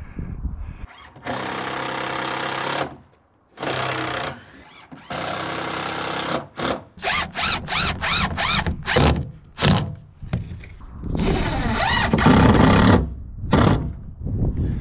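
Cordless impact driver driving screws through a steel T-hinge into wooden door planks. There are several runs of a second or so each, a quick string of short trigger bursts about seven to ten seconds in as screws are snugged down, and another longer run near the end.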